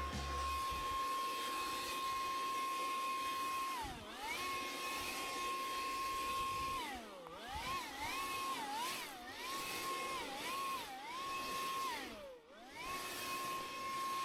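Two-stroke chainsaw running at high revs, its pitch dropping and recovering several times as the chain loads up in the cut.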